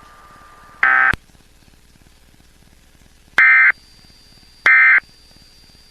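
Emergency Alert System end-of-message data bursts: short, buzzy digital squawks, one about a second in and then two more about a second and a half apart near the end. They mark the close of the alert.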